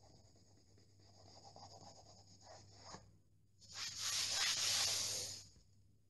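Damp cloth rubbing on a painted wall to wipe off a scuff mark: light scrubbing at first, then a louder stretch of rubbing lasting about two seconds past the middle.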